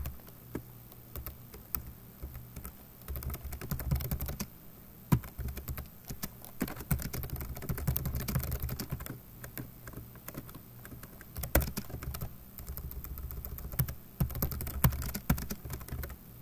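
Typing on a computer keyboard: irregular bursts of quick keystrokes separated by short pauses.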